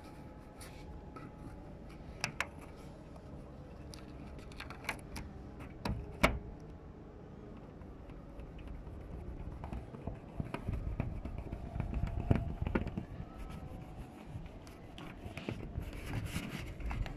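Hands pressing and rubbing foil-faced sealing tape onto a ribbed polycarbonate roof sheet: scattered clicks and light scraping, turning to a heavier, low rubbing noise in the second half as the tape is worked down along the edge.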